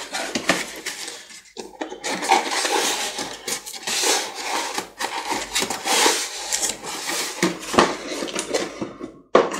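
A cardboard model-kit box being handled and its tight lid worked open: irregular scraping and rubbing of cardboard against cardboard, with small knocks, broken by a brief gap near the end.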